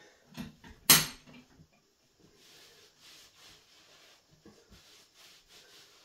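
A single sharp clatter of a hard object at a bathroom sink about a second in, then the faint rustle of a towel being rubbed over a wet face and hair.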